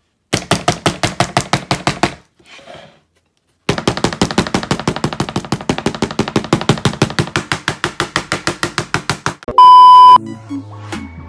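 Rapid, evenly spaced dabbing of an eraser against charcoal drawing paper, about eight strikes a second, stopping for about a second and a half a couple of seconds in. Near the end, a brief steady test-pattern beep.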